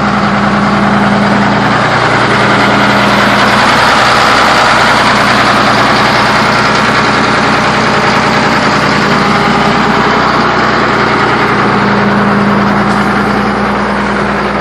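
Excavator engine running steadily at idle.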